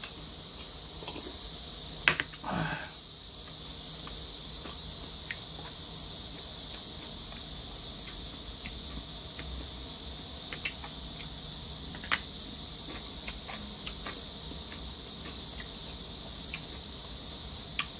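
A person drinking and eating: a sharp clink of the glass about two seconds in with a short breathy sound right after, then scattered light clicks and taps, over a steady high hiss.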